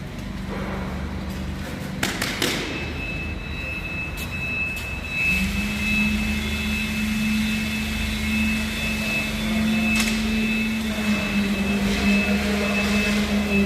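Construction machine engine running steadily under a continuous high whine. The engine steps up and holds from about five seconds in. A few sharp knocks land early on and again near the middle.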